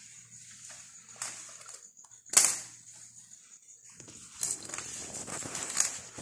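Paper rustling and handling noises on a table, with one sharp knock about two and a half seconds in and a longer stretch of crackly rustling near the end.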